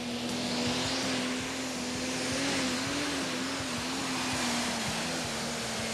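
Single-turbo diesel engine of a Valtra Pro Stock pulling tractor running hard under load as it drags the weight sled, belching black smoke. A steady engine note, wavering slightly midway, with a wide rushing hiss over it.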